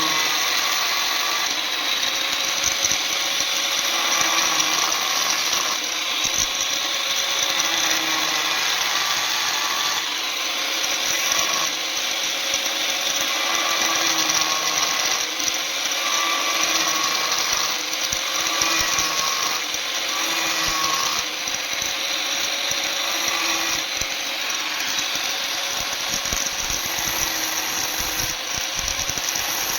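An electric power tool running steadily on metal, its motor note wavering slightly as it works.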